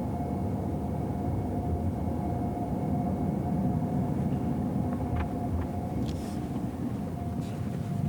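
Toyota RAV4 hybrid driving at steady speed, heard from inside the cabin: a steady low road and tyre rumble with a thin, even whine above it. A few faint clicks come about five to six seconds in.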